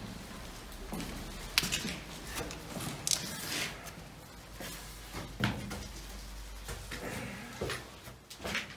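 Footsteps and shuffling on narrow stone steps and floor, with scattered knocks and clatters, inside a small enclosed stone chamber.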